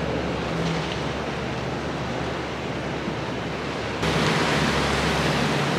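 Steady wash of sea waves with wind. About four seconds in it turns abruptly louder and brighter.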